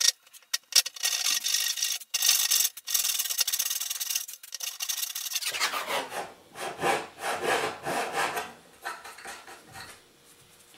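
Brass-backed backsaw cutting a 45-degree miter through bamboo floorboard. A few short starting strokes, then steady sawing, then separate back-and-forth strokes about two a second that stop near the end as the cut is finished.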